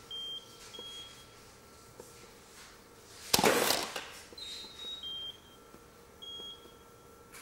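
Studio flash heads giving short, high ready-beeps at two slightly different pitches as they recycle. About halfway through, a frame is taken: a sharp burst as the camera shutter and flashes fire, followed about a second later by another round of the ready-beeps.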